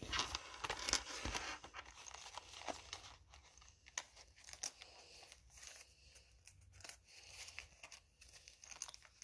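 Rustling and crinkling of close handling: sweater fabric rubbing over the phone's microphone, then a wallet and its contents being handled, with scattered small clicks. The rustling is thickest in the first second or so.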